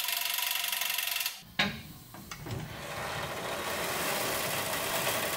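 A handheld power tool runs with a steady buzz and cuts off about a second and a half in, followed by a click. After that comes a rougher, uneven mechanical noise that builds.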